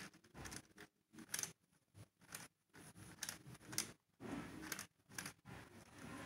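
Faint, irregular clicking of Lego Technic gears and plastic parts as the 42108 mobile crane's boom is raised by hand, its linear actuator extending.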